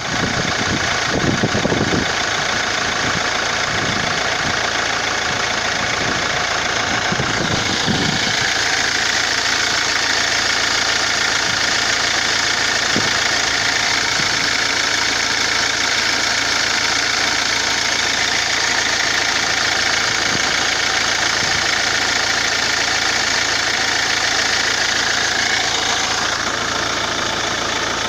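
Car engine running in gear, turning a jacked-up drive wheel freely on its half-shaft, as a test of the shaft for warping and the wheel bearing for a humming growl. The running sound is steady, with a few low knocks in the first eight seconds. About eight seconds in, a higher whir grows stronger and stays to near the end.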